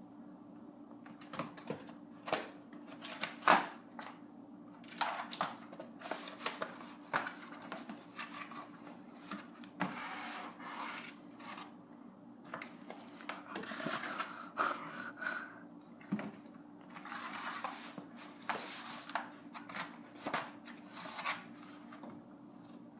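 Cardboard rustling, scraping and crinkling in irregular spells, with scattered knocks and clacks as a dog works it against a doggy door; the sharpest knock comes about three and a half seconds in.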